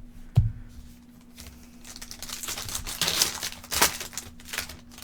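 Trading card pack wrapper being torn open and crinkled, rustling that grows louder in the second half, after a single sharp tap near the start.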